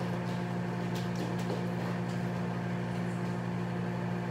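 Steady low electrical hum of a kitchen appliance, with a few light knocks about a second in as a kitchen cabinet is rummaged and its door shut.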